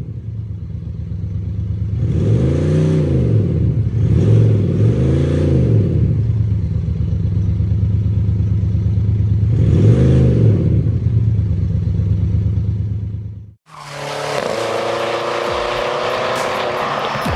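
BMW X5 M50d's tri-turbo inline-six diesel, fitted with an active sound generator that adds a synthetic exhaust note, held at a steady idle-like run and blipped four times with quick rise-and-fall revs. Near the end the engine sound cuts off abruptly.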